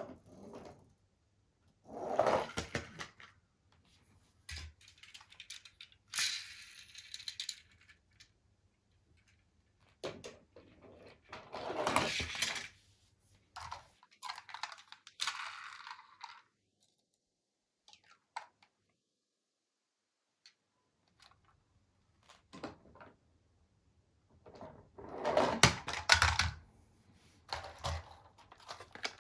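Toy vehicles clattering and knocking as they are handled, in separate bursts of a second or two with quiet gaps between, the longest gap about halfway through.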